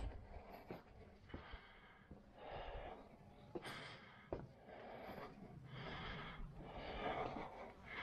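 A person breathing heavily close to the microphone, in and out about once a second, over a low rumble, with a sharp tap about four seconds in.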